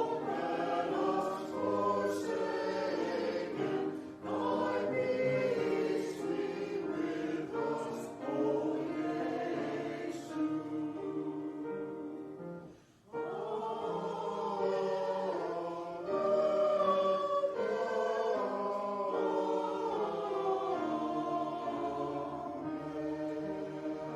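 A choir singing in phrases, with a short breath-like break about halfway through.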